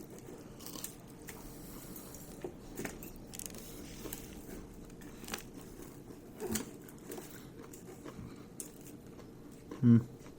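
A person chewing and biting a mouthful of grilled chicken close to the microphone, with scattered soft clicks and crunches. There is a brief low hum from the voice near the end.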